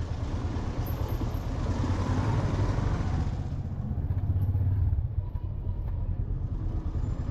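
Motorbike running on the road: a steady low engine drone under road and wind hiss, the hiss easing about three and a half seconds in.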